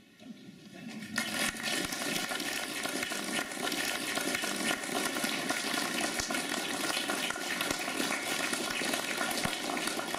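Audience applauding: the clapping starts about a second in and goes on as a steady, dense patter of many hands.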